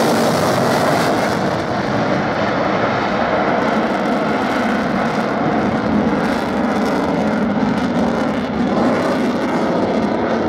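Swiss Air Force F/A-18C Hornet's twin General Electric F404 turbofans, loud and steady jet noise as the fighter flies a display pass. The high hiss dims after about a second and a half as the jet draws away.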